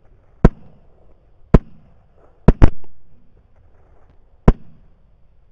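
Suppressed rifle shots: five sharp reports spread over a few seconds, two of them a split second apart about halfway through.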